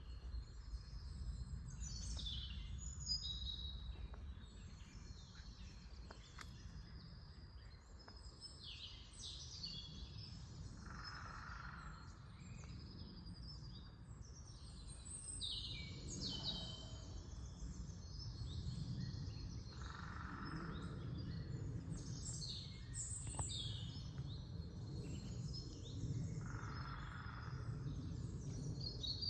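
Several songbirds singing at once in a spring forest dawn chorus, short phrases and chirps overlapping throughout. Three lower-pitched sounds about a second long each come roughly ten seconds apart, over a steady low rumble.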